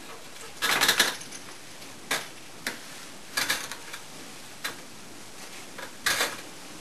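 Distant aerial fireworks going off: a string of sharp cracks and crackles, some single and some in quick clusters, roughly a second apart, over a steady background hiss.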